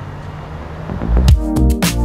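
Electronic outro music with a heavy beat: loud drum hits over sustained synth notes come in about a second in, after a low rumble.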